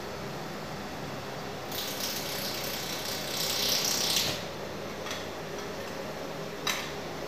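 Pulsed YAG laser welding machine firing on the work, heard as a high hissing noise that builds for about two and a half seconds and then stops, over the steady hum of the machine and its chiller. Two short sharp clicks follow.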